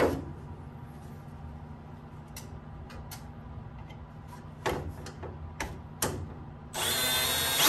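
A handful of light clicks and knocks, then a Milwaukee cordless drill with a long bit running for about a second near the end, match-drilling through the aluminium magnetometer mount, and stopping abruptly.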